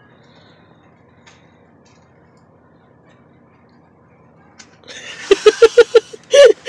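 Low, quiet background hiss for several seconds. About five seconds in, a young woman suddenly breaks into a quick, rhythmic burst of laughter.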